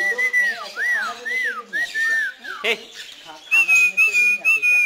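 A bird whistling: a run of short whistled notes that rise and fall, then a longer wavering whistle held for over a second near the end.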